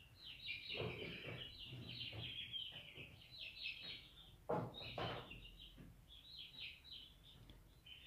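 Young chickens peeping in rapid high chirps, nearly continuous, with a few louder bumps of handling, the loudest about four and a half seconds in.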